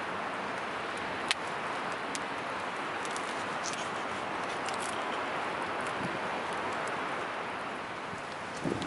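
Steady rush of storm wind with scattered sharp crackles from a wood campfire, one louder pop about a second in.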